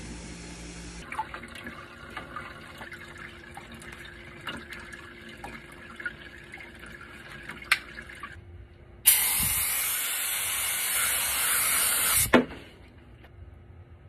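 Activator sprayed from an aerosol can over hydro-dipping film floating on the water: a loud steady hiss that starts suddenly about nine seconds in, lasts about three seconds and ends with a click. Before it there are faint scattered clicks and handling noises.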